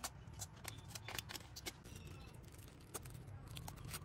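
Small irregular clicks and taps of hand tools and parts being handled during a tablet repair, a few each second.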